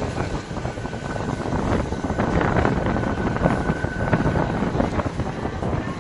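Passenger train rolling around a curve, the wheels and rails clattering with many short knocks, and a thin steady high whine from the wheels on the curve that stops about four seconds in. Wind buffets the microphone held out of the carriage window.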